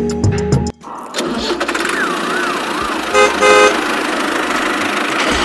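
Background music cuts off suddenly, giving way to a steady mechanical hum with a wavering, warbling tone over it. About three seconds in, a horn sounds two short honks.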